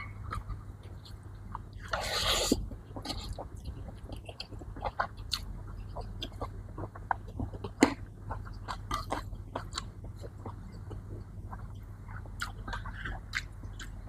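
A person chewing and biting food close to the microphone, with irregular small crunches and mouth clicks. One louder, noisier sound lasts about half a second, about two seconds in.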